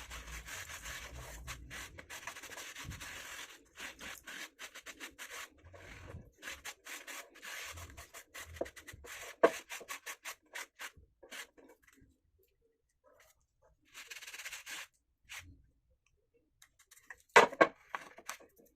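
Rubbing and scraping in irregular strokes, with a few pauses, then a short loud clatter near the end.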